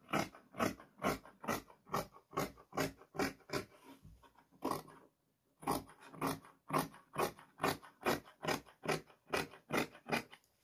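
Large tailor's shears cutting through black fabric: a steady run of crunching snips, about two to three a second, with a short pause about five seconds in.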